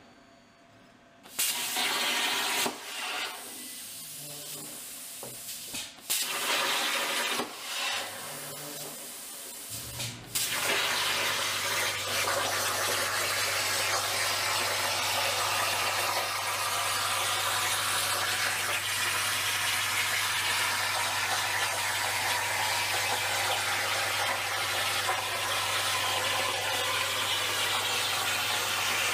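Razorcut 45CNC plasma cutter on a CNC plasma table cutting 1/16-inch steel sheet: a loud, rushing hiss of arc and air. It starts and stops in short spells through the first ten seconds, then cuts without a break with a low hum underneath.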